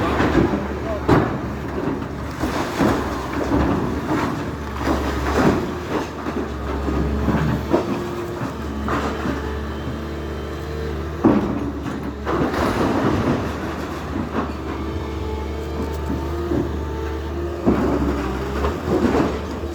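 Demolition machinery running steadily with a low hum, over irregular knocks and crashes of debris being broken and dropped, the sharpest about eleven seconds in and again near the end.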